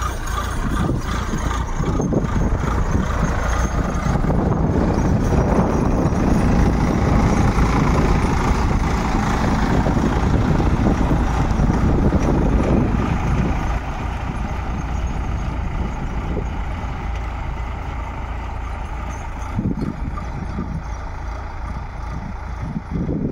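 Sonalika tractor's diesel engine running steadily under load as it pulls a tine cultivator through dry soil. It is louder while the tractor passes close, then drops and stays lower as it pulls away.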